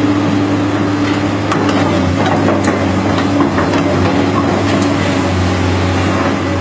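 Komatsu PC210 tracked excavator's diesel engine running steadily, with scattered clanks from the machine as it shifts on its tracks over gravel.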